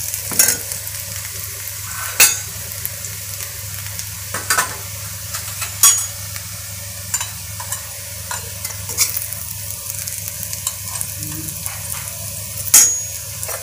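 Steel spatula and spoon scraping and clinking against an iron kadai and a steel lunch box as a potato stir-fry is turned and scooped out, with a sharp clink every couple of seconds. A steady sizzle from the hot pan runs underneath.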